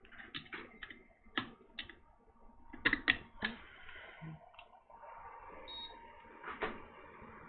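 Irregular sharp clicks and light taps at a hot air rework bench, the loudest cluster about three seconds in. Under them runs the steady hiss of the hot air station's airflow, which fades out at the start and comes back about five seconds in.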